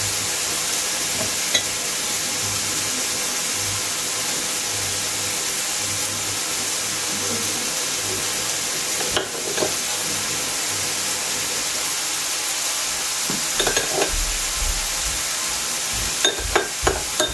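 Steady sizzle of minced-meat-filled tortillas frying in oil in a pan, with a few light taps near the end.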